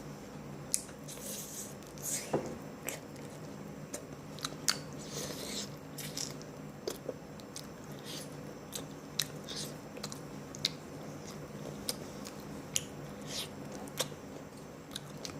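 Close-miked chewing and biting of hot and spicy chicken: wet mouth noises with frequent short, sharp clicks at irregular intervals. A steady low hum runs underneath.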